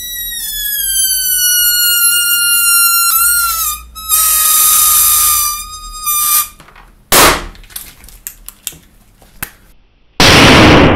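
Air squealing out through the stretched neck of a rubber balloon: a high, reedy whine that falls slowly in pitch, then a second squeal held steadier. Scattered rubbing and tapping follow, and about ten seconds in comes a very loud bang.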